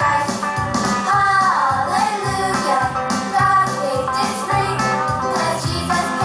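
Prerecorded upbeat country-style gospel song playing, a stretch between sung lines carried by the band with a steady beat.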